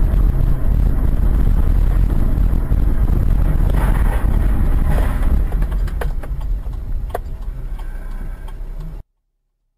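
Dashcam audio from a stationary car: a steady low rumble in the cabin, with a brief noisier stretch about four seconds in as cars collide at the junction ahead, and a few sharp clicks a couple of seconds later. The sound then fades and cuts off suddenly about nine seconds in.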